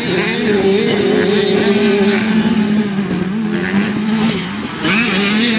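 Motocross bike engines revving around the track, their pitch wavering up and down.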